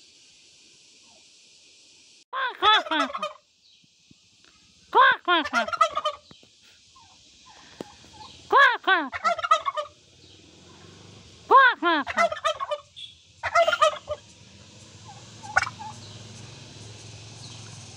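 Domestic turkey tom gobbling five times, roughly every three seconds, each gobble a rapid rattling run of falling notes about a second long, with a brief shorter call near the end. This is the male's display call, given as he struts with his tail fanned.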